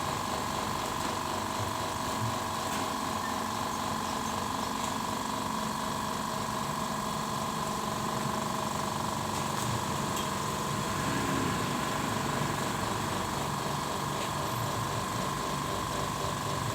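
Mollar 50-litre 'silent' eight-piston air compressor running steadily, a constant motor hum with a steady higher tone over it.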